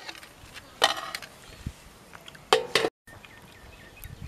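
A steel ladle clattering against stainless steel plates and pans as chicken gravy is dished out. There are two clattering knocks, one about a second in and one about two and a half seconds in; the second rings briefly.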